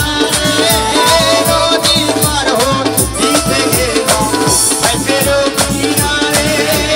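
Instrumental interlude of a Bengali folk ensemble: tabla and dholak drive a fast, even rhythm under a harmonium melody, with a shaker-like rattle on top.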